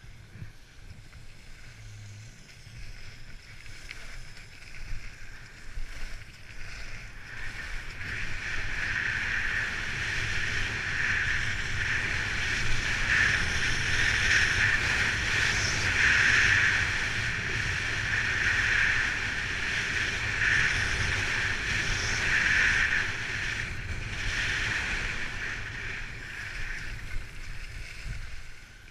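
Skis sliding and carving on packed, groomed snow, a steady scraping hiss that grows louder as speed picks up about eight seconds in and eases off near the end, with wind rumbling on the microphone.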